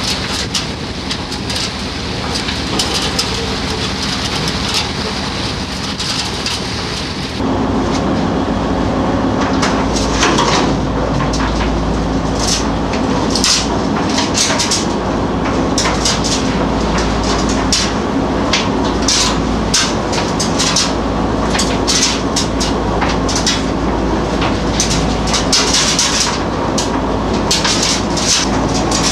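Fishing boat's engine running with a steady low hum, under irregular splashing and clatter as a longline is hauled aboard over the gunwale. The noise steps up louder about seven seconds in.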